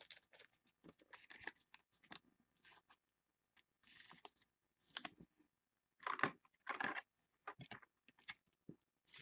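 A trading card being slid into a clear plastic top loader and handled: faint, scattered clicks and rustles, busiest about two-thirds of the way in.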